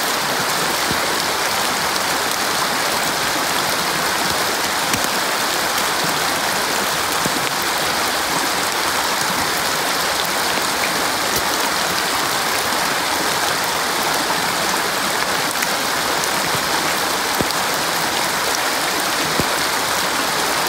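Shallow, rocky woodland stream flowing steadily over stones, an even rushing noise.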